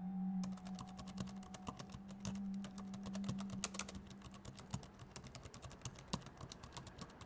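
Rapid, irregular typing on a computer keyboard, starting about half a second in, over a low steady hum that stops a little past halfway.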